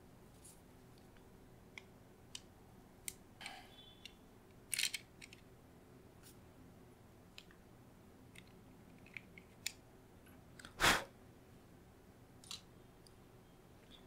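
Scattered faint clicks and scrapes of a precision screwdriver and plastic parts as screws are taken out of a Logitech MX Vertical mouse's plastic shell. There are two sharper clicks about five seconds in and one louder short snap near eleven seconds.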